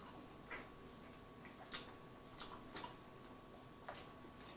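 Close-up chewing of barbecue ribs: a handful of short, soft, wet mouth clicks and smacks at irregular intervals, about a second apart.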